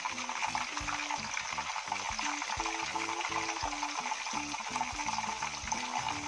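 Bacon-wrapped scallops frying in hot oil in a pan: a steady sizzle, with a simple background tune underneath.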